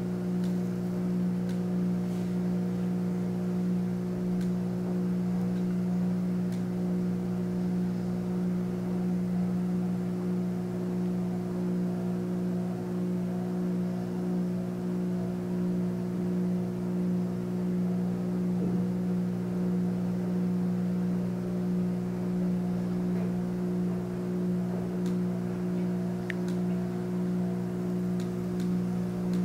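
A steady low hum made of several fixed tones that runs on unchanged.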